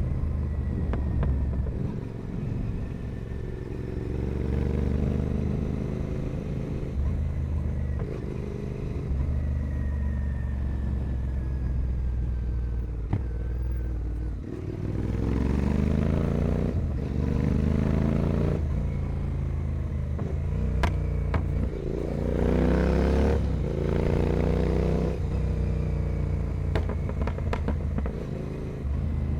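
Royal Enfield Continental GT 650's parallel-twin engine through a full carbon 2-into-1 racing exhaust, under way. It runs at a steady pitch for the first half, then accelerates hard several times, each time rising in pitch and dropping back at a gear change, with a few sharp cracks.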